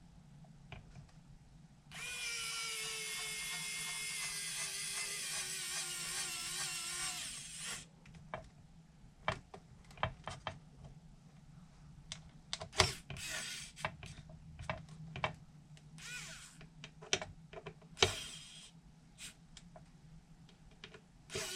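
Small handheld power driver running for about five seconds, its whine dropping gradually in pitch, while fasteners are driven into the parts of a miniature car-lift kit. Then come scattered clicks and knocks of small parts being handled, with two brief runs of the driver near the end.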